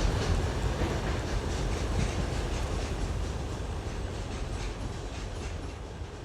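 Steady low rumbling noise with a faint rhythmic clatter, slowly growing quieter.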